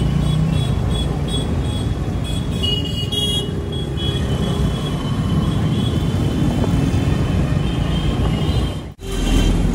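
Riding a Honda scooter in city traffic: a steady low wind rumble on the microphone mixed with the scooter's engine and the surrounding traffic. A brief high tone comes about three seconds in, and the sound cuts out for an instant near the end.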